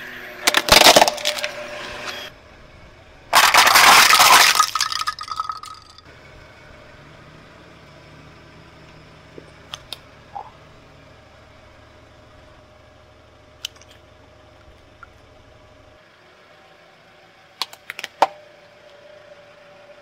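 Car tyre rolling over and crushing plastic toys: loud cracking and breaking of plastic about a second in and again from about three to five seconds in, then a quieter stretch with a low hum and a few small sharp snaps.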